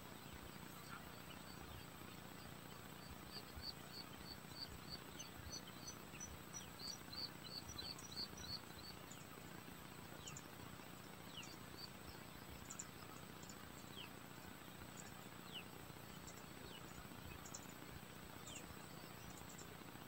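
Faint outdoor ambience: a small bird's rapid, evenly spaced chirping in two runs between about three and eight seconds in, scattered short falling chirps, and a steady high insect whine underneath.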